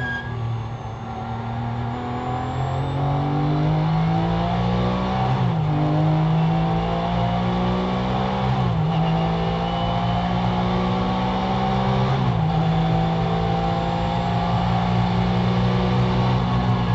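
Porsche GT3's flat-six engine at full throttle, heard from inside the cockpit, its pitch climbing through the gears with three quick upshifts: about a third, half and three-quarters of the way through.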